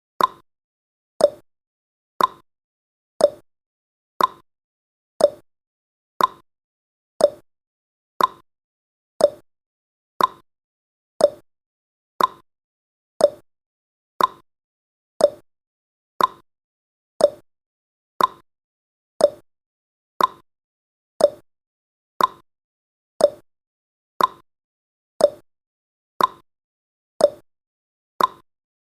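Countdown timer's ticking sound effect: one short, sharp tick each second, alternating between a higher and a lower tick like a clock's tick-tock.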